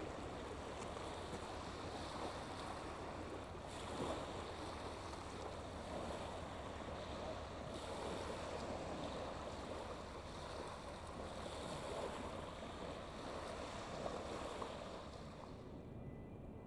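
Small waves washing onto a shingle beach, a steady wash that swells every few seconds and drops lower near the end.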